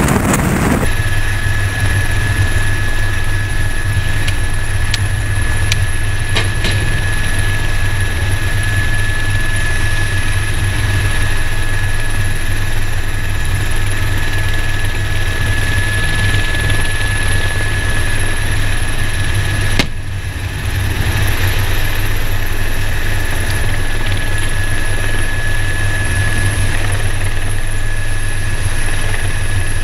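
Helicopter rotor and turbine running steadily, heard from aboard at the open cabin door: a constant low drone with a steady high whine over it. The sound dips briefly about twenty seconds in.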